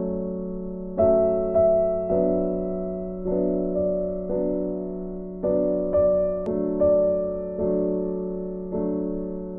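Background piano music: slow notes and chords struck about once a second, each fading away before the next.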